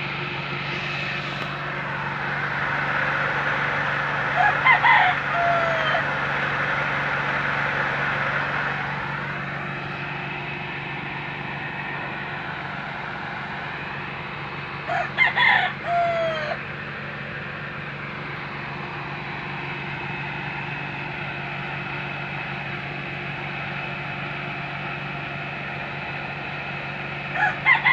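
A rooster crowing three times, about ten to twelve seconds apart, each crow ending in a falling note, over a steady mechanical hum.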